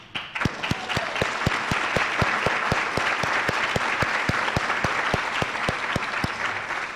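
Audience applauding, a steady patter of many hands, with one pair of hands clapping close to the microphone at about five claps a second. It starts at once and eases off slightly near the end.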